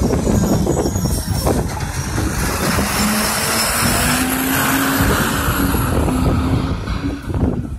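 Diesel rear-loader garbage truck driving past close by, its engine note and tyre noise loud, then fading near the end as it moves away.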